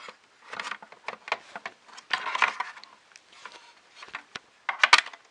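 Hands handling the plastic parts and wiring of a 3D printer's power module: scattered light clicks and knocks with a brief rustle about two seconds in, and a quick run of sharp clicks near the end.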